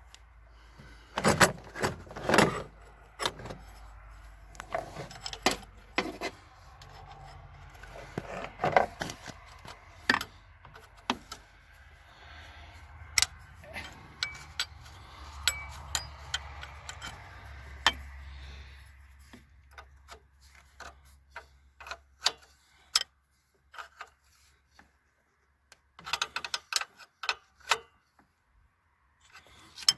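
Irregular metallic clicks, clinks and small knocks of parts and tools being handled while hoses and lines are fitted back onto a throttle-body fuel-injection unit. The sounds come in clusters with short pauses between them.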